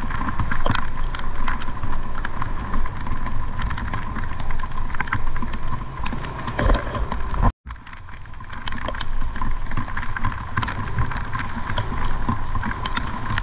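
Steady road and wind noise of a vehicle moving through wet city traffic, with a constant hum and many small ticks. The sound cuts out completely for an instant about halfway through.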